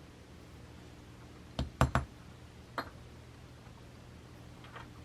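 Metal letter-stamping tools handled on a work surface: short clicks and knocks, three close together about a second and a half in and another about a second later.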